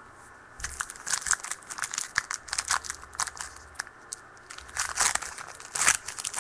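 Crinkling and tearing of a foil trading-card pack wrapper as it is torn open and handled: a quick run of irregular sharp crackles that starts about half a second in.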